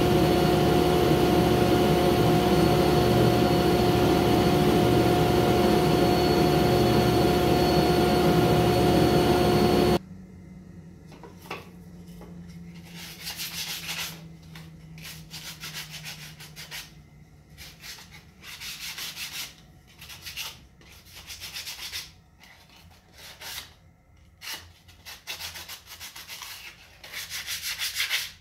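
A loud, steady drone of shop machinery with a few fixed tones stops abruptly about ten seconds in. Then a sanding block is rubbed back and forth along a wooden strip by hand, in irregular strokes of about a second each.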